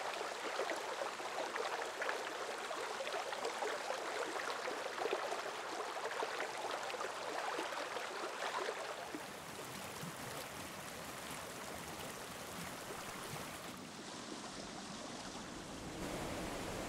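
Running water of a stream, a steady rush with no pitch to it. It gets a little quieter about halfway through and changes character again near the end.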